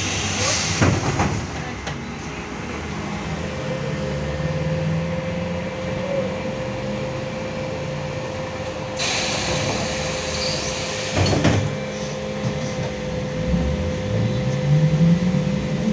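Inside a LiAZ-5280 trolleybus on the move: running rumble with a steady tone, a hiss about nine seconds in, a couple of knocks, and near the end the whine of its DK-213 traction motor rising in pitch as it accelerates.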